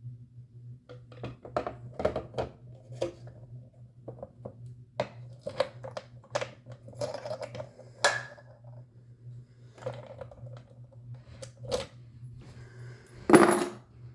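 Scattered plastic clicks and knocks of a small wireless thermostat being handled, its buttons pressed and the unit put back into its guard box, with a louder clatter about 13 seconds in.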